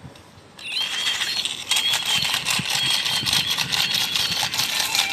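Battery-powered walking toy mouse switched on: its plastic gears clatter with dense rapid clicking as it moves, and a high electronic tune from its sound chip plays over it, both starting suddenly under a second in.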